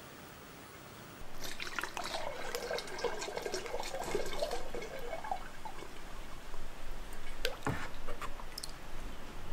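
Liquid white clay slip poured from a ladle into a funnel and running down a tube into a basketball reservoir, glugging with a bloop-bloop gurgle that starts about a second in. One sharp knock comes near the end.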